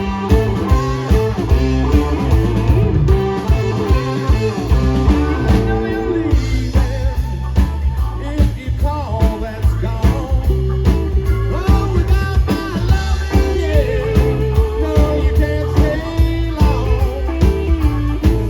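Live blues-rock band playing: a lead electric guitar bending and shaking its notes over a steady bass and drum groove.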